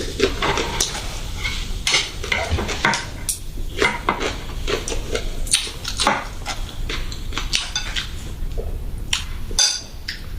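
Dishes and eating utensils clinking and clattering in an irregular run of short knocks and clicks.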